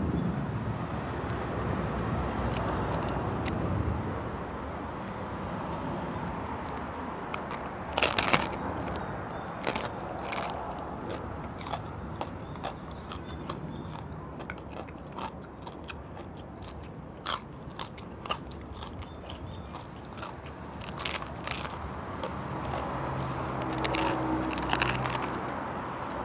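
Crunching bites into the crispy skin of a pork knuckle, with chewing in between. The sharpest, loudest crackling crunches come about eight seconds in and again near the end.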